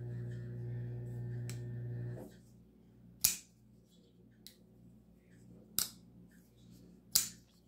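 Bestech Thorn flipper knife being flicked open and shut, giving three sharp metallic clicks a couple of seconds apart plus a few fainter ones. A steady low hum runs under the first two seconds and then cuts off.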